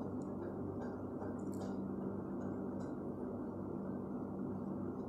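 Chopped chicken offal frying in a non-stick pan: a few faint sizzling crackles in the first three seconds over a steady low hum and rush.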